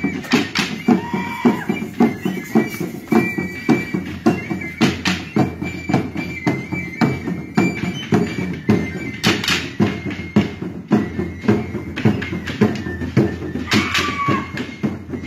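Dance music for a street procession of feather-headdress dancers: a drum beats a steady rhythm of about two to three strokes a second, with a thin high held melody line above it.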